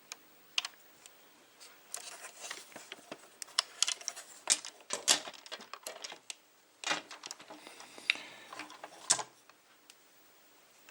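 Irregular clicks, taps and light rustling of a small plastic remote-control Buzz Lightyear toy being handled and turned over, starting about two seconds in.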